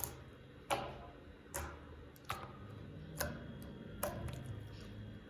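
Slime being worked by hand, giving a sharp click or pop about once a second, six times.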